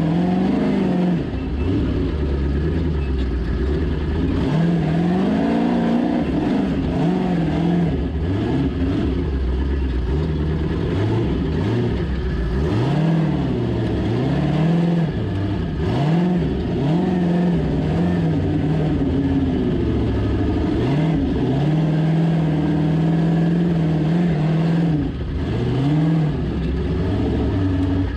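Ultra4 off-road race buggy's engine, heard from inside the cockpit, revved up and let fall again in repeated short bursts as the car crawls over rocks at walking pace.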